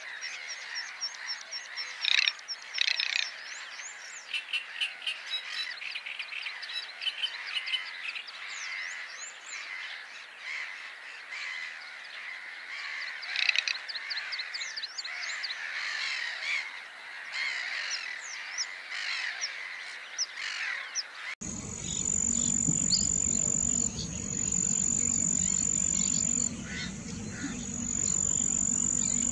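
Dense chorus of wetland birds: many short rising and falling chirps, clicks and rattling calls. About 21 seconds in it cuts abruptly to a steady, high, insect-like trill in long stretches with short breaks, over a low hum.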